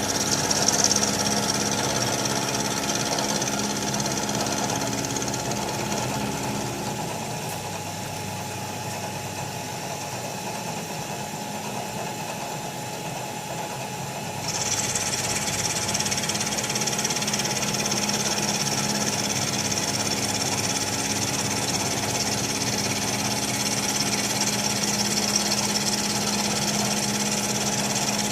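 Bridgeport Series 2 Interact 4 CNC milling machine running, milling a port into a master cylinder: a steady mechanical hum with fixed tones. A higher hiss over it fades about a quarter of the way in and comes back suddenly about halfway through.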